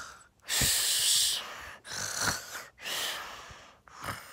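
A person's loud, noisy breaths: four heavy breaths with short pauses between them, the first about a second long.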